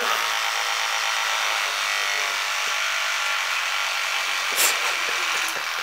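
Electric hair clipper buzzing steadily as it is run through hair on the head, with a brief rustle about four and a half seconds in.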